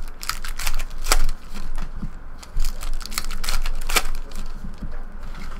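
Foil trading-card pack wrappers crinkling and cards tapping and sliding as they are handled: a quick, irregular run of sharp crackles and clicks.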